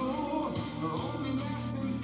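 Background music: a song with a singing voice over a full band.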